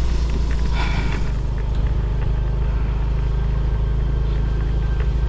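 Motorcycle engine running steadily while riding, a low hum with road and wind noise, and a brief rattle about a second in.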